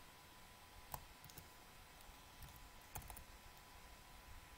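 A few faint, scattered computer keyboard keystrokes, slow typing with long gaps, over near-silent room tone; the clearest keystrokes come about one second and three seconds in.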